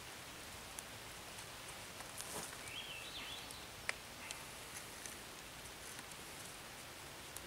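Cord being wrapped and pulled tight around a wooden pole by hand: faint rustling with a few small clicks, the sharpest about four seconds in, over a steady outdoor hiss.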